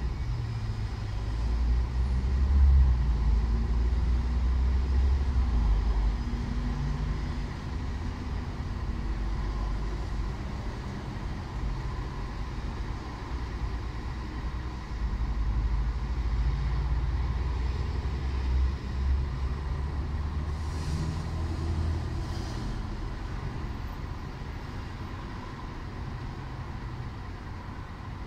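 City road traffic: passing vehicles make a low engine rumble that swells and fades, loudest in the first few seconds and again a little past the middle.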